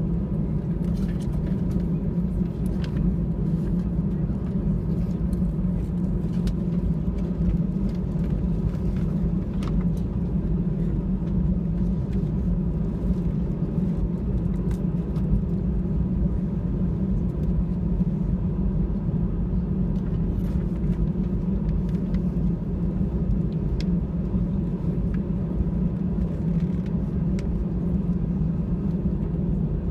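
Cabin noise of an Airbus A320 taxiing, heard from a window seat over the wing: a steady low engine hum and rumble with no change in thrust.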